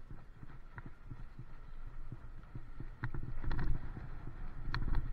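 Bicycle rolling on wet tarmac, picked up by a camera mounted on the bike: low rumble and wind buffeting with scattered knocks and rattles, louder from about three seconds in.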